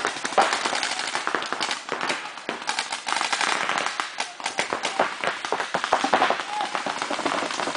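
Paintball markers firing in fast, overlapping strings of shots from several players at once.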